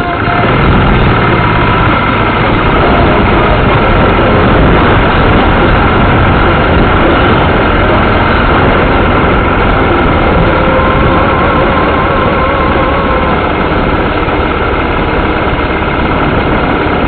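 A Royal Enfield Classic 500's single-cylinder engine running steadily on the move, under a loud, even wash of wind and rain noise on the camera.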